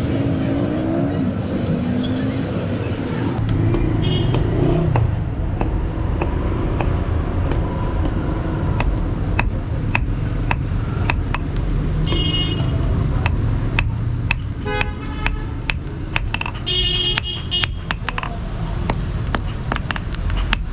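Irregular sharp metallic knocks and clinks of hand metalworking, some with a short high ring, over a steady low rumble.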